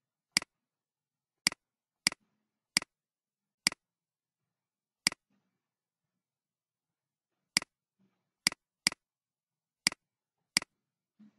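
Eleven sharp computer mouse clicks at uneven intervals, with a pause of about two and a half seconds in the middle.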